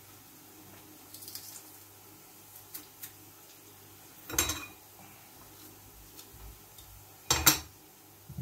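Metal garlic press being worked: faint clicks as cloves are squeezed, a louder short metal clatter about four seconds in, and a sharp knock near the end.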